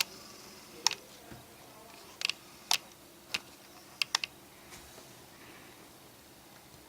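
Small sharp clicks and taps of repair tools and tiny screws against the iPhone 5C's internal parts, heard as about seven irregular clicks with a quick run of three about four seconds in.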